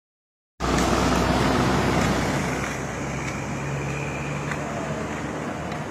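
Swollen, flooding river rushing past, a loud dense roar of water that starts abruptly just over half a second in and eases a little after about two seconds. A low steady hum runs under it until about four and a half seconds in.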